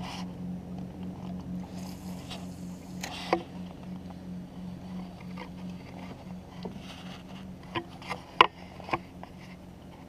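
A steady low hum, with a few sharp clicks and knocks from handling: one about three seconds in and a quick cluster near the end.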